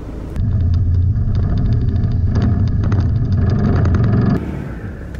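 A four-wheel drive driving along a bumpy sand track: a steady low engine rumble with many quick knocks and rattles as it jolts over the ruts. The sound cuts off abruptly near the end, giving way to a quieter vehicle hum.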